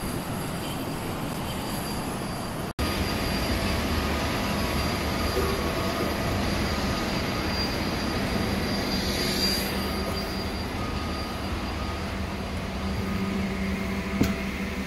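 Steady drone of machinery around a parked airliner on the ramp, with a low hum and a thin high whine. The sound drops out for an instant about three seconds in, then carries on; a brief hiss swells near the middle and a click comes near the end.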